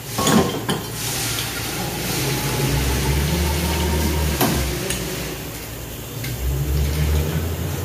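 Food frying in a lidded pan on a gas burner, a steady sizzle. A low hum comes in twice, and there are a couple of sharp knocks, one just after the start and one midway.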